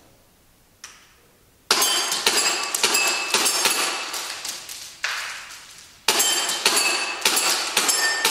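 Tokyo Marui S&W M&P9 gas blowback airsoft pistol fired in rapid strings: sharp cracks of the gas-driven slide mixed with BBs hitting steel plate targets that ring. The shooting starts about two seconds in, slackens briefly past the middle, and picks up again.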